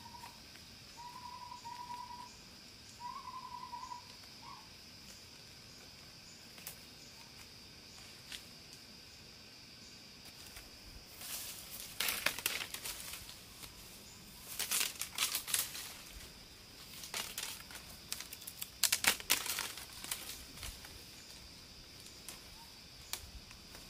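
Several bursts of rustling and crinkling, like something moving through dry leaves or brush, over a steady high thin tone; a few short chirps in the first few seconds.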